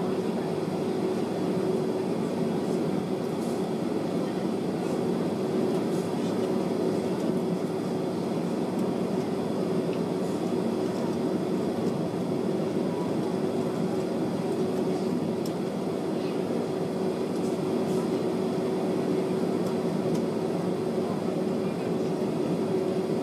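Jet airliner's engines running at taxi power, heard inside the passenger cabin as a steady hum with one constant droning tone.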